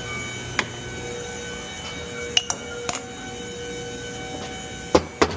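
A few sharp clicks and knocks of tools and parts being handled in an engine bay, the loudest two close together near the end, over a steady background hum.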